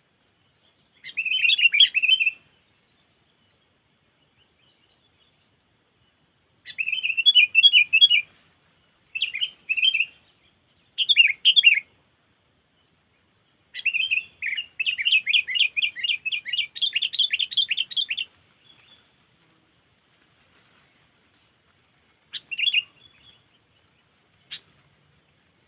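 Sooty-headed bulbul (kutilang) decoy bird singing in short bursts of fast, bubbling, chattering phrases, with a longer run of about four seconds in the middle. This is the lure song of a trained pikat bird.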